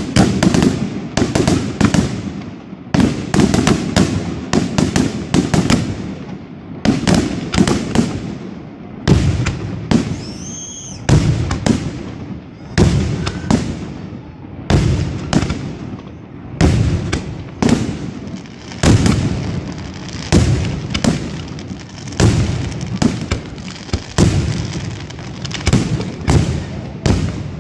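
Aerial firework shells bursting in quick succession, a sharp bang every second or so, each trailing off in a low rumble. A short rising-and-falling whistle cuts through about ten seconds in.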